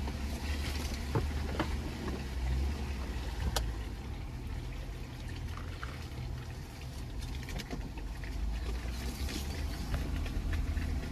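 Jeep Gladiator crawling slowly down a rutted dirt trail: a steady low engine rumble, with scattered crunches and clicks of tyres over rocks and gravel.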